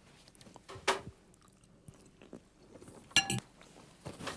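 A man chewing a mouthful of fresh pasta, with soft mouth sounds and faint clicks. A short sharp sound about three seconds in is the loudest moment.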